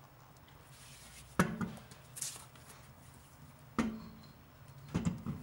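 Handling noise: four separate knocks and clicks about a second apart, with faint rustling between them.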